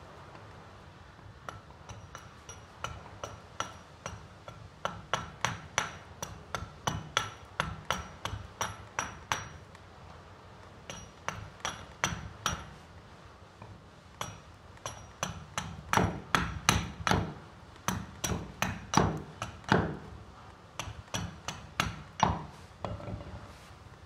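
Forged SIBIN axe hewing a block of stained (bog) oak in quick short strokes: a rapid run of sharp knocks, about two to three a second, each with a faint metallic ring. The strokes come in bursts with short pauses and stop near the end.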